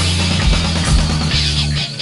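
Backing rock music with electric guitar over bass and drums; the bass drops out near the end.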